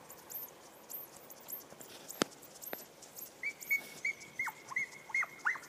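A dog whining, a run of about eight short high whimpers, each dropping in pitch, over the last two seconds, with faint high chirping throughout and a sharp click about two seconds in.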